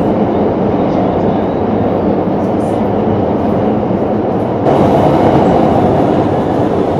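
Metro train running, heard from inside the carriage: a steady rumble and rush of rolling noise. About two-thirds of the way in it turns louder and brighter.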